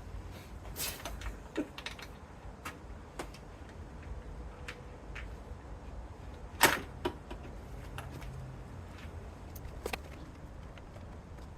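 Scattered clicks and light knocks of hand tools being worked on a 10 mm fastener, irregular rather than a steady ratchet rhythm, with one sharper knock about two-thirds of the way through.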